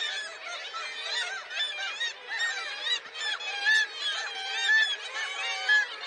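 A colony of black-legged kittiwakes calling, with many short rising-and-falling calls overlapping at once. Several louder calls come in the second half, from birds at the nest calling with bills wide open.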